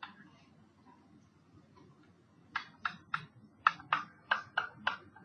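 Pen tip tapping and clicking against a writing surface while handwriting: a run of short sharp taps, about three a second, that starts about two and a half seconds in.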